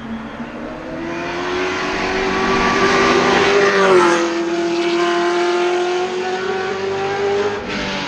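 Hillclimb race car's engine at full throttle, the note climbing through the revs with a quick upshift about halfway through and another near the end, growing louder as it approaches.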